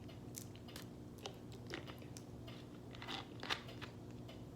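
Scattered small crunching and crackling clicks, a few louder ones about three seconds in, over a steady low hum.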